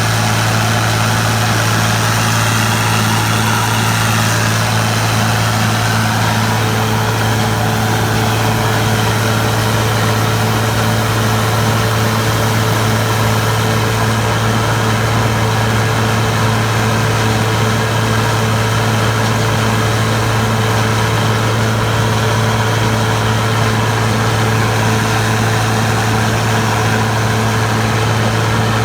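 Large diesel harvest-machinery engine running steadily at constant speed, with a faint steady whine joining about six seconds in.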